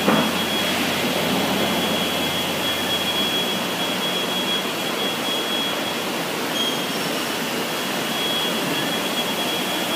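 Morbidelli Author 500 S CNC router running: a steady mechanical rush with a thin, steady high whine held over it.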